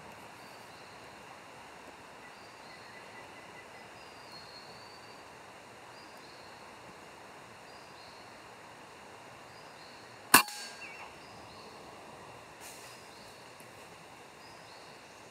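A single sharp shot from a scoped hunting rifle about ten seconds in, fired at a squirrel feeding in a mulberry tree. Steady forest background with faint high chirping.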